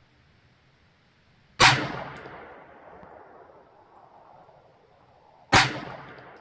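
Two shots from a Ruger LCP II Lite Rack .22 LR pistol, about four seconds apart, each a sharp crack followed by a fading echo.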